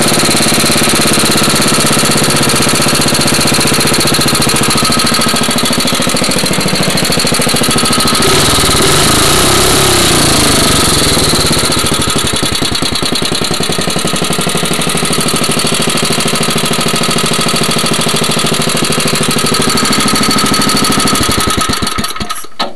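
Ungoverned 5 hp Briggs & Stratton single-cylinder engine running loud and fast. Its pitch wavers up and down for a few seconds partway through as it is revved. It dies down just before the end.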